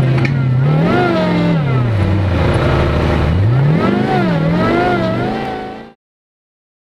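Engine of a hydraulic rock-crawler buggy running under load on a rocky trail, its revs rising and falling repeatedly, then fading out about six seconds in.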